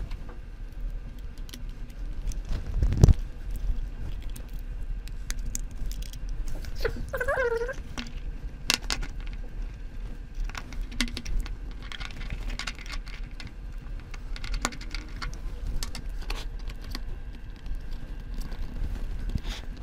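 Scattered clicks and taps of hands handling a screwdriver and a 2.5-inch SSD against a laptop's plastic base, with one louder knock about three seconds in. Near the end the SSD is slid into the laptop's drive bay and pressed into place.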